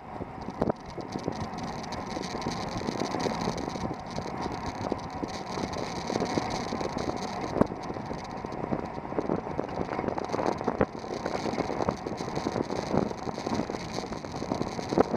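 Wind and road noise on a bicycle-mounted camera while riding, with frequent small knocks and rattles.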